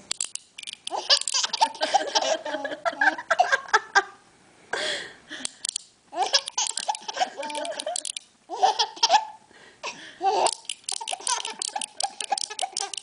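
A baby laughing hard in repeated bouts of belly laughter, each bout a rapid run of short pitched bursts, with brief breaks between them.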